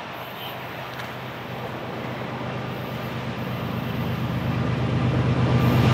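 Diesel freight locomotives led by a GE ES44DC working under power as they approach, a deep engine drone growing steadily louder.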